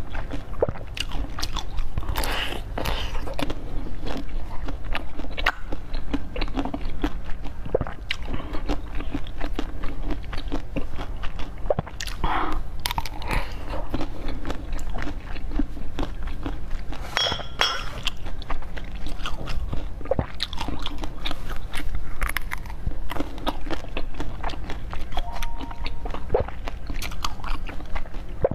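A person biting and chewing a crunchy dessert, with irregular crisp crunches and crackles throughout. A steady low hum runs underneath.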